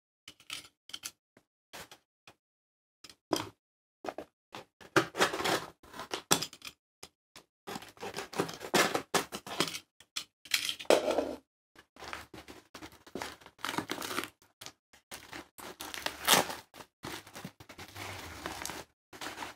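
A yellow plastic padded mailer being handled and torn open: irregular crinkling, crackling and tearing with short pauses, only a few scattered crackles at first and denser after about four seconds.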